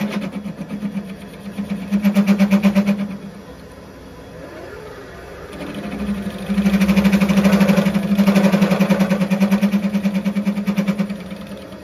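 Vevor mini-lathe driven by a sewing-machine servo motor, cutting pipe: a loud, pulsing chatter of the tool in the cut for about three seconds, easing off briefly, then again from about five and a half seconds until near the end. The lathe bounces on its rubber mounts under the cut, and the servo motor's speed keeps dropping by itself.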